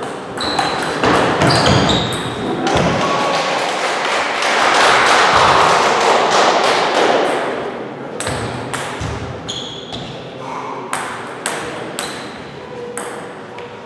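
Table tennis ball clicking off the bats and the blue table in a doubles rally, then a loud burst of noise around the middle as the point ends, with scattered ball taps again in the second half before the next serve.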